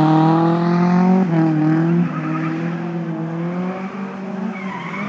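A drift car's engine held at high revs through a slide, with tyre squeal. The revs dip briefly just over a second in, and the sound grows fainter from about two seconds in as the car moves away.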